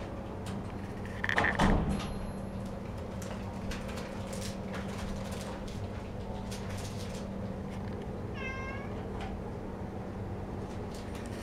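A cat gives one short, high meow about eight seconds in. Earlier, about a second and a half in, there is a loud brief thump, the loudest sound here, with a steady low hum and scattered small clicks underneath.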